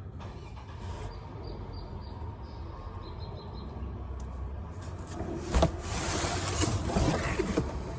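Handling noise from parts and tools: a sharp knock about five and a half seconds in, then a couple of seconds of rustling and scraping with small clicks, over a low steady hum.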